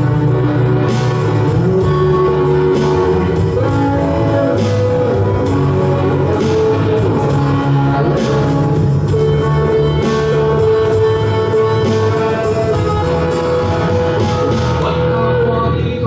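A live rock band plays with electric guitars, a bass guitar and a drum kit: steady drum strokes under a sustained guitar melody.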